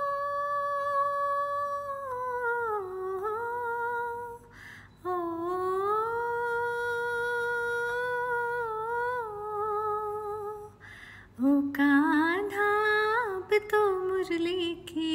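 A woman humming a slow, wordless melody unaccompanied, in three long phrases of held notes that waver and bend; the last phrase, starting about eleven seconds in, is lower and more ornamented.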